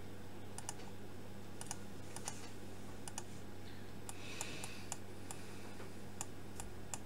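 Faint, irregular light clicking at a computer, roughly one or two clicks a second, over a steady low electrical hum. About four seconds in there is a brief soft scratchy hiss.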